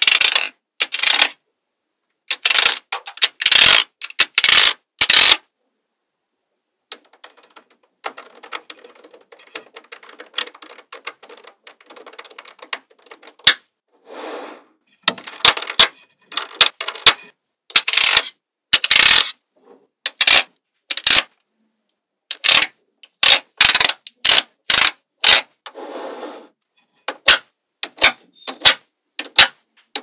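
Small magnetic balls clicking and snapping together in quick runs of sharp metallic clacks. After a short pause a few seconds in, a softer stretch of fine rattling follows, like many balls rolling against one another, before the sharp clacks come back.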